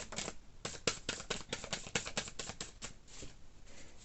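Tarot cards being shuffled by hand: a quick run of card flicks and snaps, several a second, fading to a softer rustle about three seconds in.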